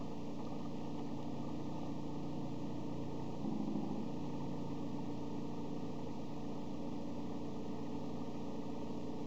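Stepper motors of a Prusa Mendel 3D printer humming steadily as they drive the axes and move a Sharpie across paper, the tone shifting briefly about three and a half seconds in.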